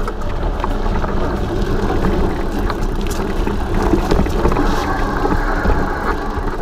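Mountain bike rolling along a dirt singletrack: steady tyre and riding noise, with scattered small clicks and rattles from the bike and wind buffeting the camera microphone.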